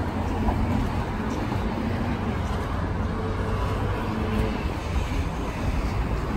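Steady low rumble of city street traffic, with a faint engine hum from a passing vehicle in the middle.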